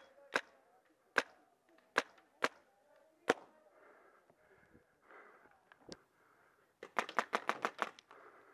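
Mag-fed paintball markers firing First Strike rounds. Single sharp shots come every half second to a second, then a fast string of about nine shots near the end.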